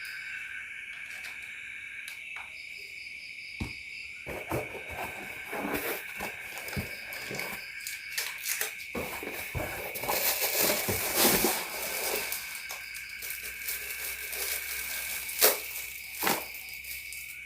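Night chorus of crickets and other insects: a steady high drone with short repeated trills over it. Scattered rustling and clicking, busiest in the middle, and two sharp clicks near the end.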